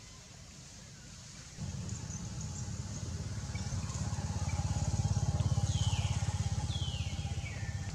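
A motor vehicle engine running with a low, pulsing rumble that starts suddenly under two seconds in, grows louder to about midway, then eases a little. High falling calls, likely from a bird, come three times in the second half.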